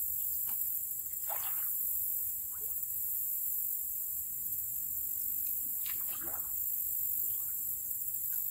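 Steady high-pitched drone of a chorus of insects, with a couple of faint brief rustling or splashing sounds about a second in and again about six seconds in.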